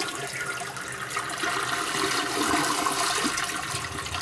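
Toilet flushing: water rushing and swirling down the bowl, easing off near the end.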